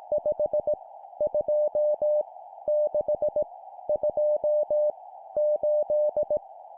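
Morse code numbers sent at 17 words per minute as a single steady mid-pitched beep keyed on and off in dots and dashes, about five character groups with short gaps between them, over a faint band of hiss.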